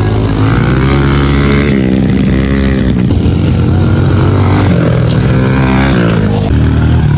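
Pit bike engine running hard in a race, its pitch climbing and dropping repeatedly as the throttle is worked.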